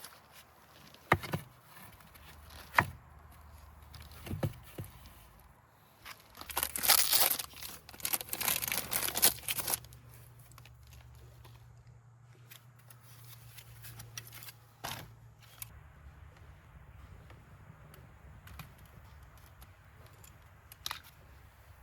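Close handling noise: a few sharp clicks, then about three seconds of crinkling and tearing, then a few scattered clicks.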